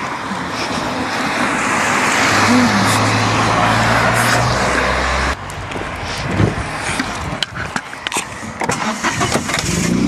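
A car driving past on the road, its tyre noise and low engine hum swelling over the first few seconds and cutting off suddenly about five seconds in. After that, scattered knocks and rustling.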